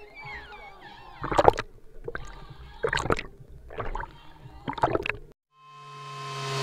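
Pool water splashing and sloshing over an action camera's microphone as the camera dips at the surface, in repeated short splashes. Near the end it cuts to a rising whoosh sound effect with held tones.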